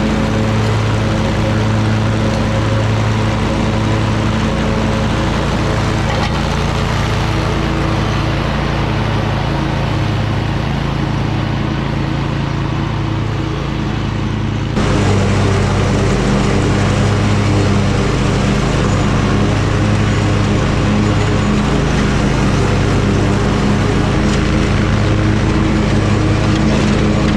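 Toro Titan Max zero-turn mower engine running steadily at mowing speed. It gets suddenly louder about halfway through.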